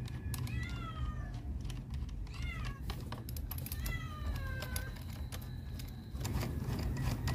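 A cat meowing three times, each call rising then falling, the last one longer, over scattered light clicks.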